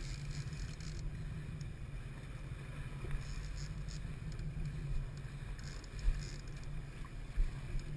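Steady low rumble of a boat at sea, with wind on the microphone and a few faint knocks.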